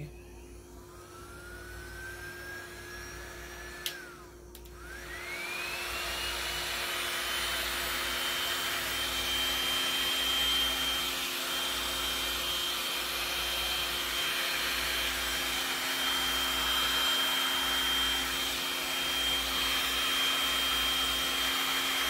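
Electric heat gun switched on, its fan whine rising as it spins up; a click and a brief dip about four seconds in, then it spins up again and runs with a steady high whine and rushing air.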